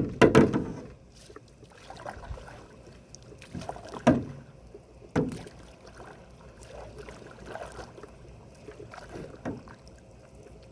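Canoe paddling: paddle strokes in the water, with a sharp knock at the start and a few short dull thumps spaced seconds apart.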